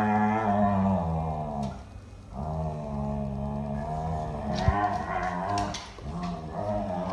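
Airedale terriers play-growling: three long, drawn-out growls with short breaks between them.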